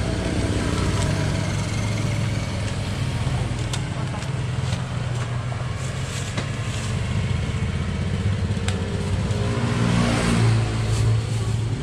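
A motor engine running steadily with a low hum, growing louder about ten seconds in. Scattered small clicks and crinkles of paper and plastic wrapping are heard over it.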